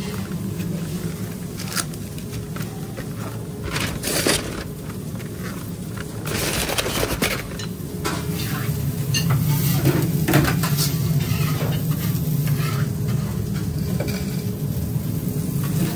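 Commercial kitchen clatter: scattered knocks and clinks of containers and utensils being handled on a steel counter, over a steady low hum.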